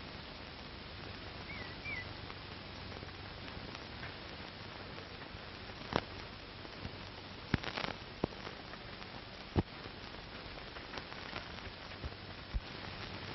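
Steady hiss and low hum of an old optical film soundtrack, with scattered sharp clicks and crackles, a small cluster of them about halfway through.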